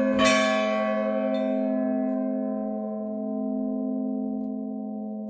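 Church bells struck once more just after the start, then left to ring out. The higher tones die away within a couple of seconds while a deep hum lingers, slowly fading.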